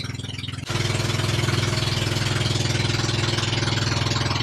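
Pump boat's engine running steadily under way, drowned in heavy wind noise on the microphone. About two-thirds of a second in, the sound jumps abruptly louder and windier, then holds steady.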